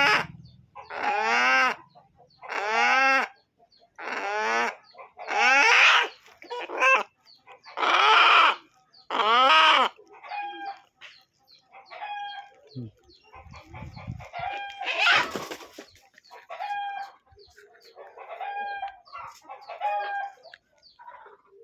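Chickens calling: a run of loud, repeated calls about every second and a half, then quieter, shorter clucks, broken by one loud harsh squawk partway through.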